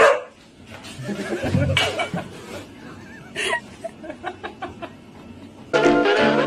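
A person laughing in short, uneven bursts, after a sudden loud sound right at the start that drops in pitch. Near the end, electronic intro music starts abruptly.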